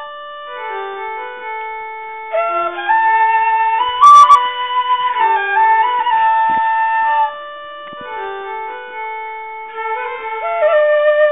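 Background music carried by a flute melody over lower held notes, softer in two passages and fuller in between.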